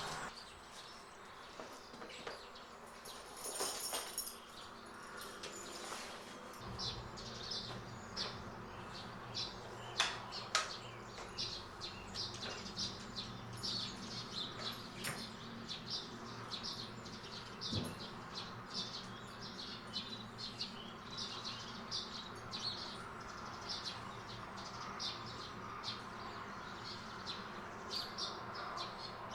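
A small bird chirping: short, high chirps repeated about two a second, along with a few faint clicks.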